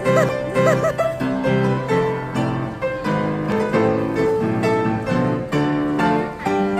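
A grand piano being played: a melody over lower chords, the notes changing steadily throughout.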